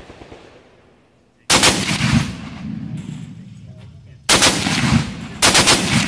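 Browning M2 .50 BMG heavy machine gun firing three short bursts: the first about a second and a half in, then two more close together near the end. Each burst is a rapid string of heavy shots, and the first fades away slowly afterwards.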